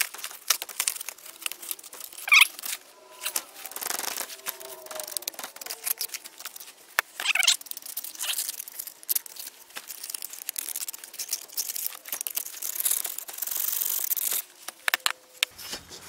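A foundry sand mould being broken out to free a fresh cast iron casting. A screwdriver scrapes and pries at the packed sand, and hands crumble the clumps into a plastic tub, giving a steady run of small scrapes, crunches and clicks.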